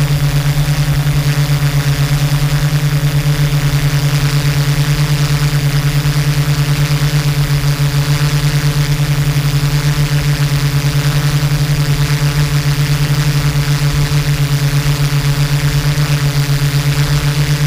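Yuneec Typhoon G drone's electric motors and propellers in steady flight, heard from its own on-board camera: a loud, even buzz with a fast, regular wobble.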